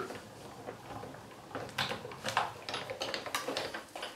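Sizzix Big Shot die-cutting machine being hand-cranked, its rollers drawing a die-and-plate sandwich through to cut a shape from card. It gives a series of soft, irregular clicks and creaks.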